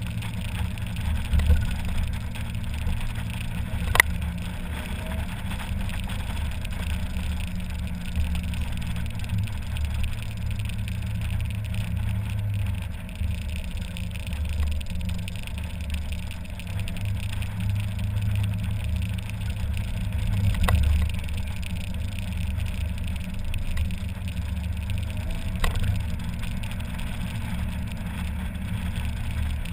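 Mazda MX-5 Miata's four-cylinder engine running while the car drives with the top down. It is a steady low drone mixed with road and wind noise from the open cockpit. A sharp click or knock is heard about four seconds in.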